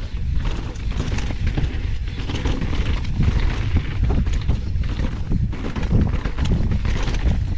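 Wind rumble on a chest-mounted action camera's microphone at riding speed, mixed with the tyres on the dirt trail and many short knocks and rattles from a Nukeproof downhill mountain bike over rough ground.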